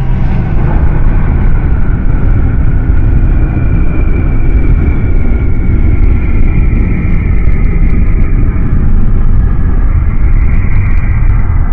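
Loud, steady deep rumble with faint drawn-out tones sliding slowly in pitch above it: a sound-designed audio recording of a fictional giant creature, from analog horror.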